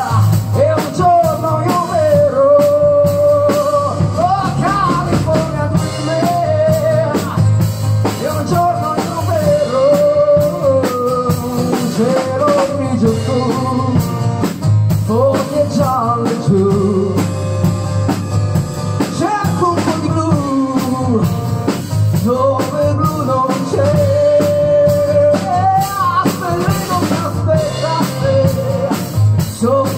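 Live rock band playing: drum kit and electric guitar under a sustained, bending lead melody, with no words sung.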